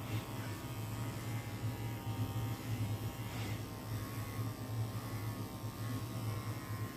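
Cordless electric pet hair clipper running steadily with a low buzzing hum as it trims a dog's long fur.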